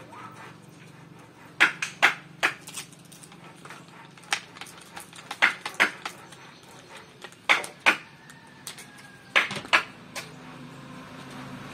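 Sharp clicks and knocks, mostly in pairs, from handling an angle grinder while a homemade sanding pad is fitted onto its spindle, over a steady low hum.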